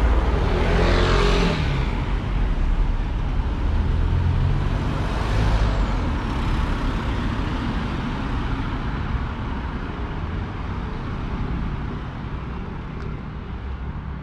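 Car traffic on the street: a car passes close about a second in, another around five seconds in, and then the road noise slowly fades.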